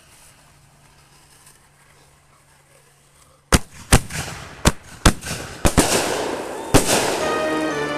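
Fireworks going off: after a few quiet seconds, a rapid string of sharp bangs starts about three and a half seconds in, about six reports in three seconds, over a rising hiss and crackle.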